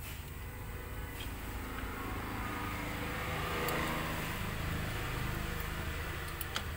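A motor vehicle running over a steady low hum, swelling to its loudest about halfway through and then fading. A few light metallic clicks come from drum brake shoes and springs being handled.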